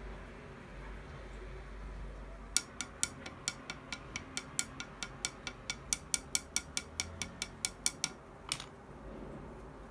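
A quick run of sharp clicks, about four a second, starting between two and three seconds in and lasting about five and a half seconds, ending with one louder click.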